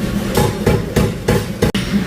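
Blacksmith's hammer striking metal on an anvil: about five sharp blows, roughly three a second.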